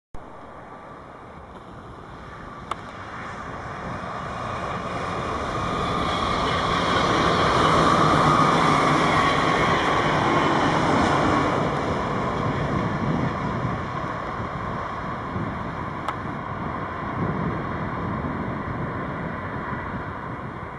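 A train passing: a noisy rumble of wheels on rails that swells to its loudest about eight seconds in, then slowly dies away.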